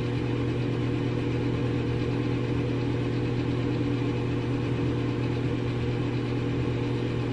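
A steady low hum, one low tone with its overtones, running unchanged throughout.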